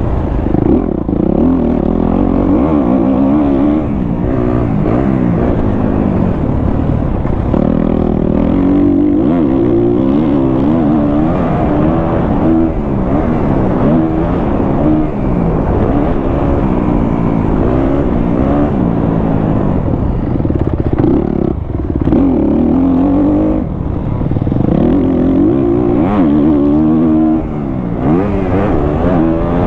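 2023 Kawasaki KX250F's single-cylinder four-stroke engine, fitted with a Pro Circuit exhaust, revving up and down again and again as the bike is ridden hard through the gears.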